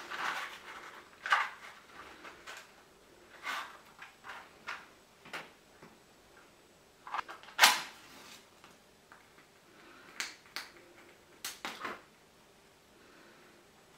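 Scattered small handling noises: soft knocks, clicks and rustles at irregular intervals, with one sharper knock a little past halfway.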